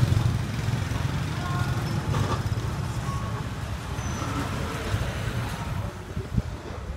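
Street traffic with motorbike engines going past, a low rumble that eases off over the last couple of seconds.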